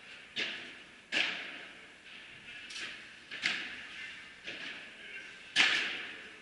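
Padel rally: a ball being struck by solid paddle rackets and bouncing off court and glass, about six sharp pops spaced roughly a second apart, the loudest near the end. Each pop rings on in the hall's echo.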